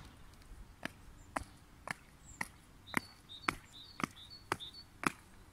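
A child's sneakers landing on asphalt in a steady series of light slaps, about two a second, as she skips from square to square.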